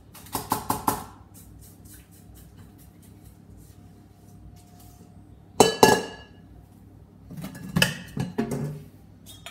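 Spatula knocking and scraping against a stainless steel mixing bowl as batter is scraped out, the metal ringing briefly after each knock. There is a quick run of taps at the start, two loud knocks a little past halfway, and more knocks and scraping near the end as batter is scraped off the mixer's beater.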